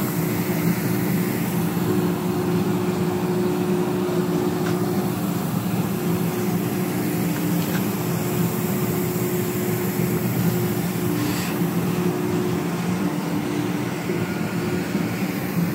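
Ship's deck crane machinery running with a steady drone and hum as it holds and moves a cargo grab on its wires; the hum briefly drops out a few times.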